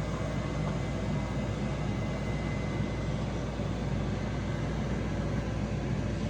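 Steady whirring fan noise with a constant low hum and a faint high whine.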